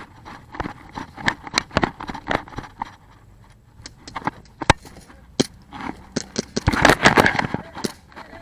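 Footsteps on rough ground: irregular knocks and scrapes, several a second, with a louder scuffling rustle about seven seconds in.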